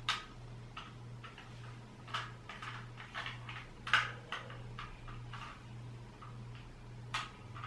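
A Rubik's Cube's plastic layers being turned by hand, giving irregular clicks and clacks about once or twice a second, over a low steady hum.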